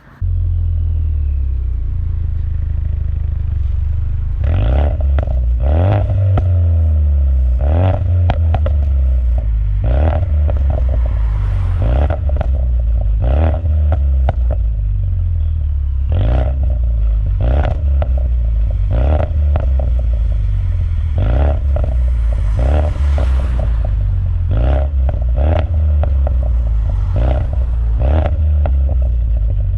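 Mustang EcoBoost 2.3 L turbocharged four-cylinder running through a COBB exhaust: a deep, steady exhaust rumble broken about once a second by sharp pops and crackles. The pops and crackles are programmed in by its Stratified tune.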